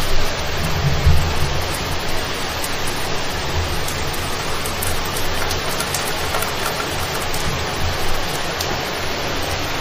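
Heavy rain pouring down in a steady dense hiss, with low gusts of wind rumbling on the microphone now and then, strongest about a second in.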